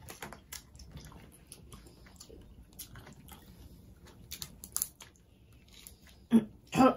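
Close-up eating sounds of boiled shellfish: chewing and mouth smacks, with scattered sharp clicks and crackles as shells are pulled apart by hand. There are two louder sounds near the end.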